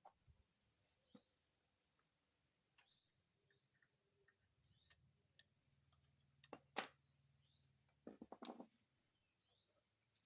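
Near silence, with faint short high chirps like small birds every second or so, and a few soft clicks in the second half.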